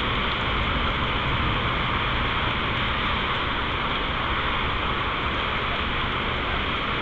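Steady hiss of heavy rain and traffic on a wet road, heard from indoors, with a low rumble beneath it.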